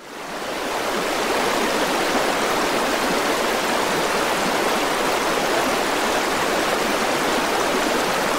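Shallow rocky stream running over stones, a steady rush of water that fades in over the first second.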